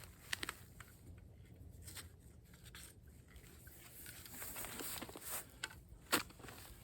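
Faint rustling and scattered small clicks of camp gear being handled by hand, with a few sharper ticks about half a second in and near the end.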